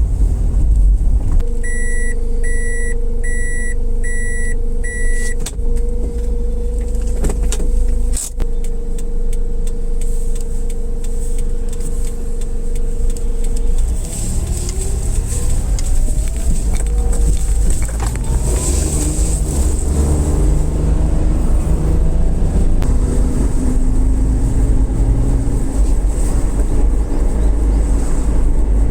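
A car's engine and road rumble heard from inside the car, with five short high beeps about two seconds in. From about halfway, the engine note rises and drops again several times as the car gathers speed.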